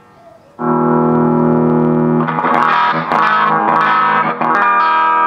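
Les Paul electric guitar played through a newly built Fender 5F1 Tweed Champ kit amp driving a bare 8-inch speaker, out of its cabinet. About half a second in, a chord rings out; from about two seconds there is a run of quicker strummed chords, and near the end another chord is held ringing. It is the amp's first sound test after wiring, and it works.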